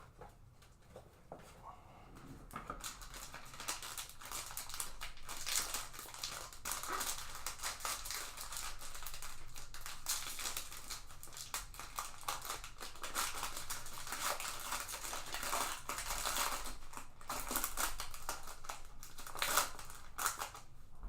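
Plastic wrapping of a trading-card box and pack crinkling and tearing as it is opened, in irregular crackly rustles, starting about two seconds in.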